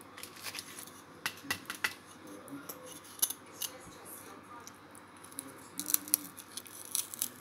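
Frozen dishcloth being chewed: irregular crisp crunches and crackles of the stiff, icy cloth.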